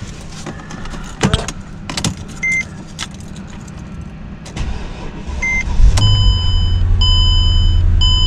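Key and ignition clicks with two short beeps, then a few seconds in the 2008 Mercedes E550's 5.5-litre V8 cranks, catches and settles into a loud, steady idle. A warning chime beeps about once a second over the idle.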